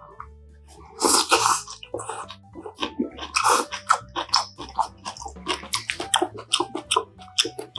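Close-miked eating of a dumpling and mushroom hotpot: two loud slurps of hot broth about one and three and a half seconds in, then quick wet chewing and lip smacks.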